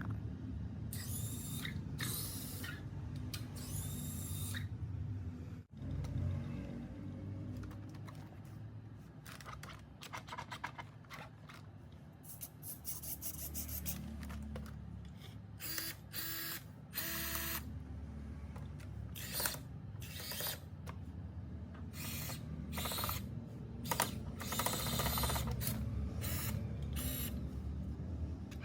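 Irregular clicking, scraping and ratchet-like rattling of small parts being handled and worked on, over a steady low hum.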